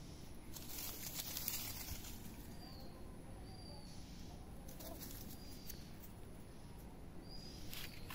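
A small bird repeating a short, high, arched chirp several times, over bursts of rustling in dry grass and leaves, the loudest of them a couple of seconds in.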